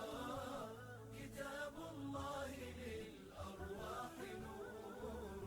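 Quiet background music: a male voice chanting in long, wavering held notes.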